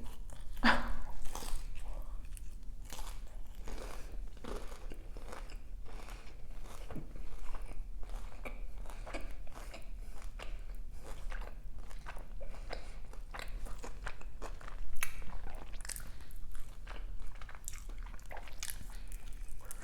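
Close-miked eating sounds of crispy fried chicken: repeated crunches of the breaded skin being bitten and chewed, with wetter chewing between, one louder crunch about fifteen seconds in.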